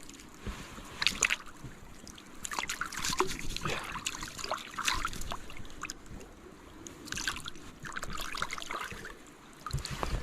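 Creek water splashing and trickling in irregular bursts as a freshly caught rainbow trout is rinsed off in it.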